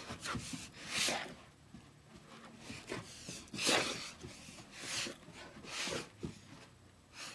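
A Greater Swiss Mountain Dog's short, noisy breaths through the nose, a hissy puff roughly every second.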